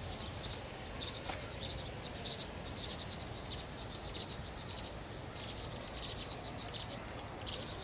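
Vinous-throated parrotbills giving alarm calls: rapid trains of high chattering chip notes in repeated bursts, the flock's distress cries under attack by a Eurasian jay.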